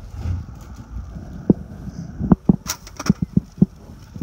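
A run of short knocks and clunks, about seven spread through the second half, with one sharper clack near the middle: gear and metal fittings being handled in the back of a box truck's cargo area.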